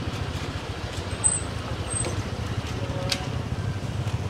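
Motorbike engine running steadily at low speed, a low, evenly pulsing drone.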